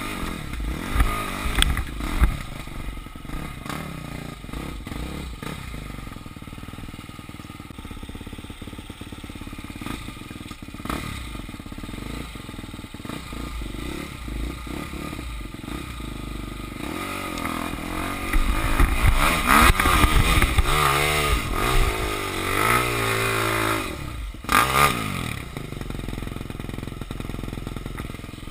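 Enduro motorcycle engine ridden slowly over rough forest ground, the revs rising and falling with the throttle. Short knocks and clattering run throughout. The revving gets louder and busier in the second half, then drops back to a steadier run near the end.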